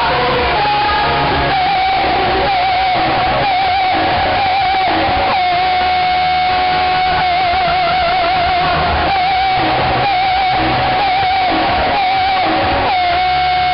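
Live pop-rock band music blasting from concert PA speakers, harsh and overdriven from being recorded too close to them, with a held, wavering high lead note over a dense band backing.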